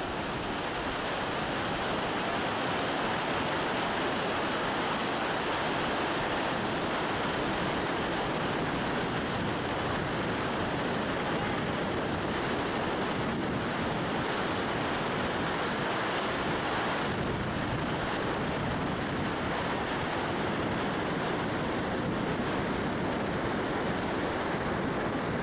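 Nisqually River whitewater rushing under a footbridge: a steady, unbroken roar of fast-moving water.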